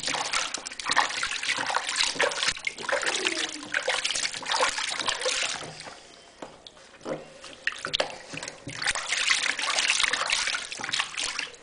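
Bath water splashing and trickling in a plastic baby bathtub as a baby is washed by hand, in two stretches with a quieter pause about halfway through.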